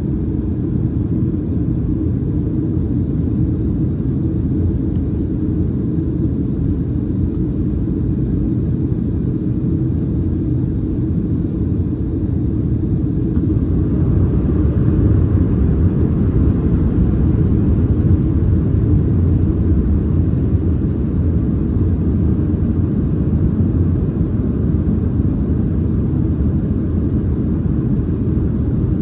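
Boeing 737-700 cabin noise in flight: its CFM56 engines and the airflow make a steady low rumble. About halfway through it grows a little louder, with an added higher hiss that then holds.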